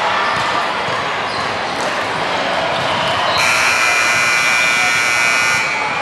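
A buzzer sounds for about two seconds, starting about three and a half seconds in and cutting off suddenly, over the steady hubbub of a busy gym.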